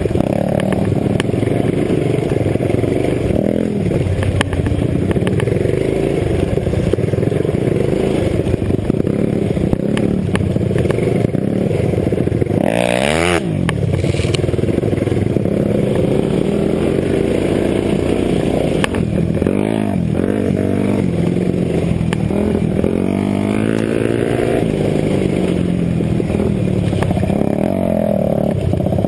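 Dirt bike engine heard from onboard the rider's own bike, revving up and down with the throttle over the trail, with knocks and rattles from the bike over bumps. One sharp rev climbs and drops about halfway through.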